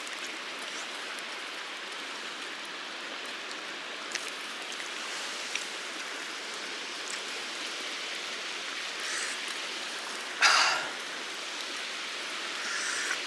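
Mountain stream flowing steadily, with a few faint ticks and one brief louder sound about ten and a half seconds in.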